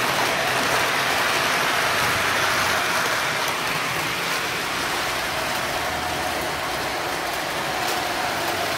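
O scale model trains running on metal track: a steady rattling rumble of wheels and motors, with a faint whine that comes up about six seconds in.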